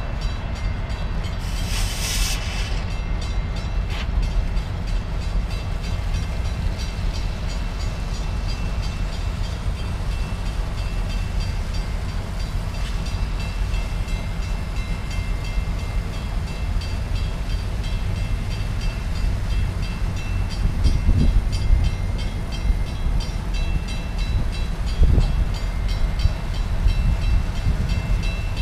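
A stopped diesel passenger train running at idle: a steady low rumble with faint even ticking above it. A brief hiss comes about two seconds in.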